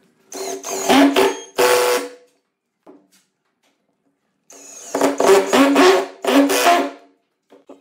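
Makita cordless drill/driver driving long wood screws into a wooden block, in two runs: the motor whines for about two seconds, stops, then runs again for about two and a half seconds from about four and a half seconds in.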